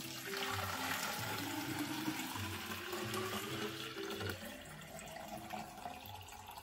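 Water being poured into a tall clear cylinder, starting suddenly with a steady rushing gush that eases off over the last couple of seconds as it fills.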